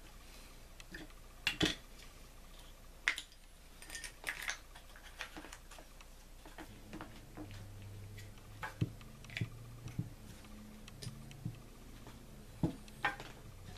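Small metal clicks and knocks from a Johnson Sabra 4 spincast reel being handled and fitted back together by hand, a few seconds apart. A faint low hum runs through the middle.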